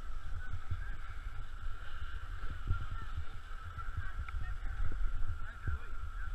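Wind rumbling on the microphone of a camera carried by a skier on the way down the slope, with short low thumps from the skis running over the snow. A thin, wavering whine sits above it.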